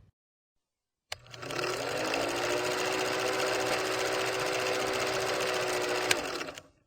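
A small motor running steadily at an even pitch. It starts after a click about a second in and cuts off near the end.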